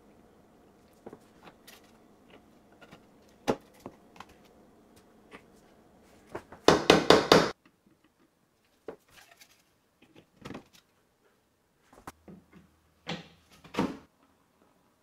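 3D-printed plastic parts handled and fitted together on a table: scattered light clicks and taps, a loud cluster of knocks about seven seconds in, and two more knocks near the end.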